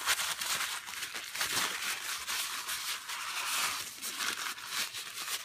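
Blue shop towel crinkling and rustling as it is crumpled and rubbed in the hands to wipe out a carburetor float bowl: a steady run of fine crackles.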